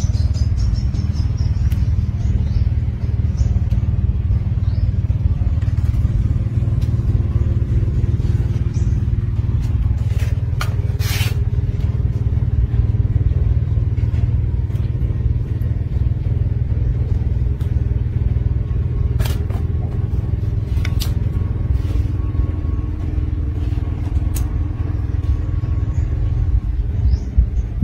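A steady low rumble with faint humming lines under it, broken by a few sharp clicks and one louder rasping noise about eleven seconds in.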